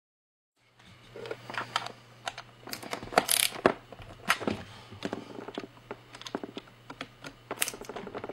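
Small clicks and taps of a precision Phillips #0 screwdriver and metal parts being handled while a tiny screw is driven into the side bracket of a laptop LED panel. The clicks are irregular, the loudest about three seconds in, and follow a moment of dead silence at the start.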